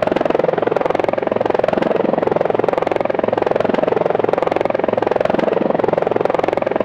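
Helicopter hovering: a steady, rapid rotor chop over the turbine's noise, unchanging throughout.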